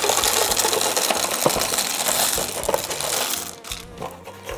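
Polished black fire stones poured from a cardboard box into a concrete fire bowl, clattering against each other and the metal gel fuel can for about three and a half seconds, then a few lighter clicks as they are spread by hand.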